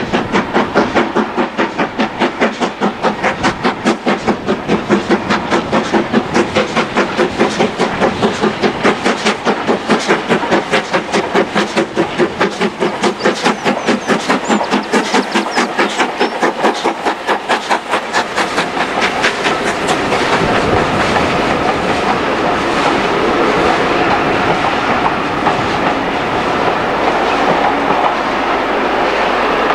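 Steam locomotive working under steam as it hauls a train of coaches past, its exhaust chuffing in an even rhythm of about four beats a second. About two-thirds of the way through the chuffing fades and the steady rolling of the coaches on the rails takes over.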